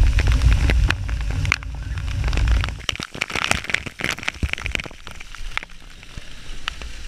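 Water rushing and splashing on a fibreglass water slide: a low rushing rumble for the first few seconds, then a burst of crackling splashes and bubbling as the camera plunges into the churning water of the landing pool, settling to a lighter trickle near the end.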